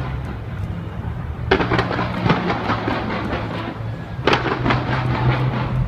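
Fireworks display: two sudden volleys of dense crackling bursts, about a second and a half in and again near the end, each dying away over a second or two, over a steady low rumble.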